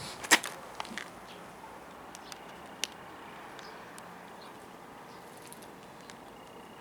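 A single sharp click or knock about a third of a second in, then a few fainter ticks, over faint steady background noise.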